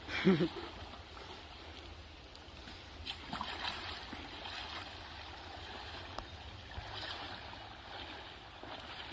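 Water splashing and sloshing as a person wades through a shallow creek pushing a bicycle, legs and wheels churning the water. A short vocal sound comes right at the start.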